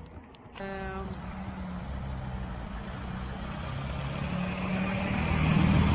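A motor vehicle's engine running, with a steady low hum and road noise growing louder toward the end. A short pitched tone sounds about half a second in.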